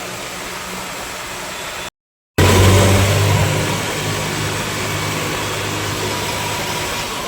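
New Holland 3630 tractor's diesel engine running steadily under way. The sound drops out for a moment about two seconds in, then the engine comes back louder with a steady low hum.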